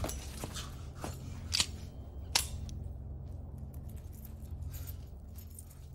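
A steady low hum with a few short, sharp clicks and rustles scattered over it, the sharpest about a second and a half and two and a half seconds in.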